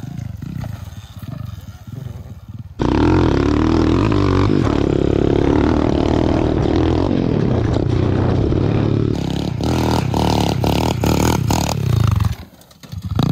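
Small single-cylinder four-stroke pit bike engine running hard, heard close up. It comes in suddenly about three seconds in after a quieter stretch, with rattling clatter over rough ground from about nine seconds in, and cuts off abruptly near the end.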